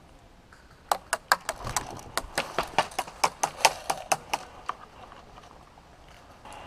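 Airsoft gunfire: a quick, irregular string of about twenty sharp snaps, starting about a second in and lasting nearly four seconds.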